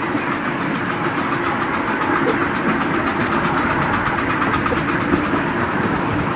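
Ride-on miniature steam train running along its track, heard from a passenger car: a steady rolling noise of the small wheels on the rails, with the locomotive working ahead.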